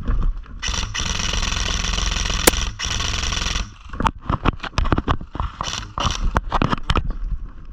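Airsoft gun firing one sustained full-auto burst of about three seconds, starting and stopping abruptly, followed by a run of sharp clicks and knocks.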